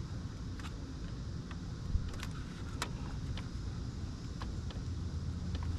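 Scattered small clicks and rustles of a plastic vacuum line being worked onto a T fitting, over a steady low rumble.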